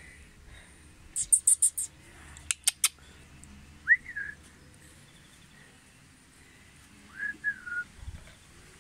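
Short whistled notes that glide up and fall away, one about four seconds in and a group of two or three near the end, after a quick run of about five high, thin chirps.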